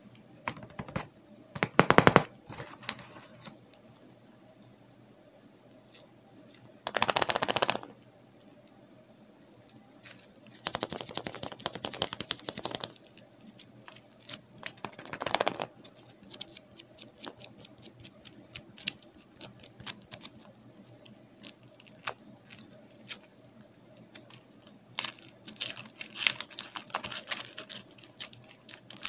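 Foil wrappers of chocolate eggs crinkling and rustling in short bursts as they are handled, then a long run of crackling near the end as the foil is peeled off a Kinder Surprise egg.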